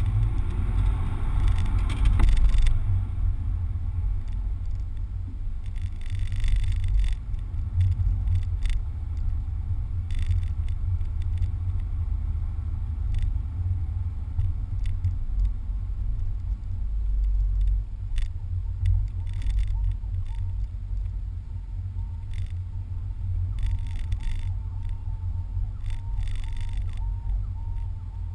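Toyota Corolla's four-cylinder engine and road noise heard inside the cabin during an autocross run: a heavy, steady low rumble, with a few brief higher hissing spells.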